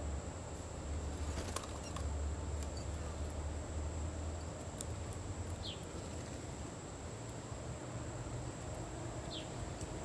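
Backyard ambience: two short high bird chirps, one about halfway through and one near the end, over a steady low rumble and a thin steady high tone, with a few faint clicks.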